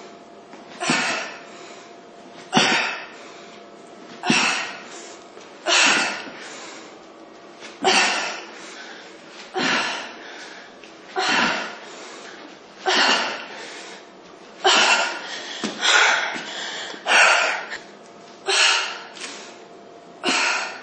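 A woman breathing hard through an exercise set: a sharp, forceful exhale with each rep, about one every second and a half.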